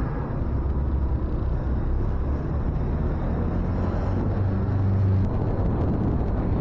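Motorcycle being ridden, heard from a camera mounted on the bike: a steady low rumble of engine and wind on the microphone.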